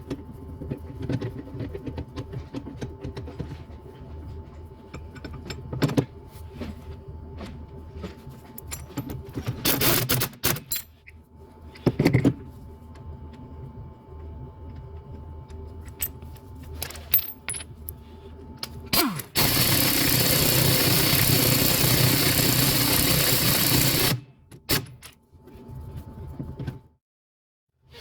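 Metal tools clinking and clattering, then a loud, steady rushing noise for about five seconds that cuts off suddenly.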